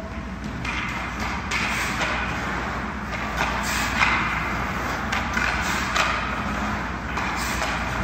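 Ice hockey skate blades carving and scraping on ice in a string of strokes, with a few sharp clicks of the stick working the puck, over a steady low hum.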